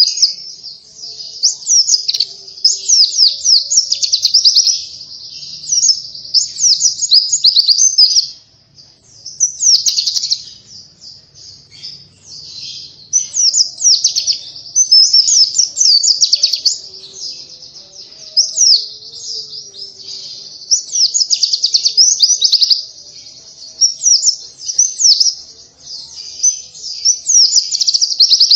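White-eye (pleci) singing energetically: long runs of rapid, high twittering phrases, broken by brief pauses.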